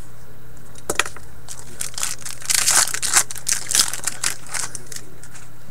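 A trading-card pack wrapper torn open and crinkled in the hands: a quick run of crackling rustles through the middle, after a single sharp tap about a second in.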